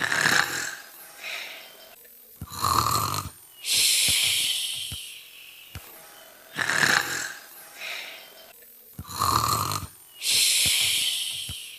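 A voice imitating snoring: a short snort, then a rumbling snore and a long hissing breath out. The cycle comes twice, about six and a half seconds apart.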